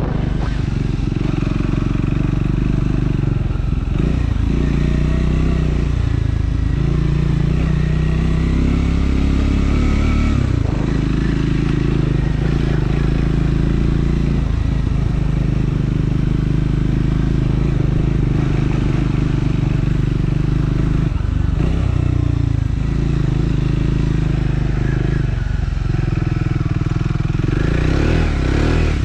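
Triumph Scrambler 400 X's single-cylinder engine running under way, loud and steady, its pitch shifting up and down with brief dips every few seconds as the throttle is opened and closed.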